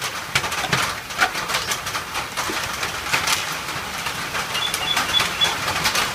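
Rain falling on the shed roof, with many scattered sharp clicks and taps, and a short run of high chirps about five seconds in.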